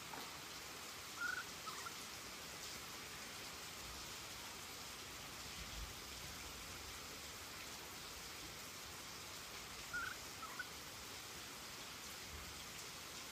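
Steady rain falling on the garden and a tiled veranda, an even hiss throughout. Two brief high chirps stand out over the rain, about a second in and again about ten seconds in.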